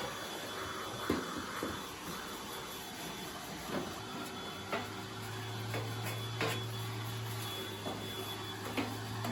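Distant petrol garden power tool, such as a leaf blower, droning steadily, with a few light clicks and knocks of metal parts being handled close by.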